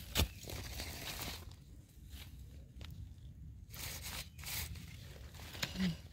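Crunching and rustling in dry leaf litter and twigs, with a sharp snap just after the start and scattered crackles after it.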